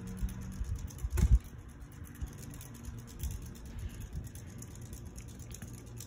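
Harbor Breeze Builder's Best ceiling fan running with its blades spinning: a steady low motor hum with the blades' air buffeting. A few knocks in the first second and a half, the loudest about a second in.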